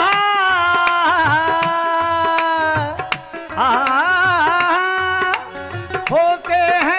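Sufi devotional song: a voice drawing out long, held notes with bends and ornaments between sung words, over a steady hand-drum beat.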